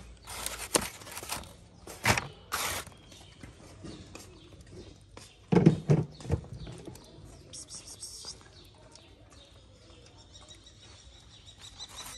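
Plastic food trays set down and handled on concrete pavement: several sharp knocks in the first three seconds, then a louder pair of thumps about six seconds in. Faint bird chirps in the background in the second half.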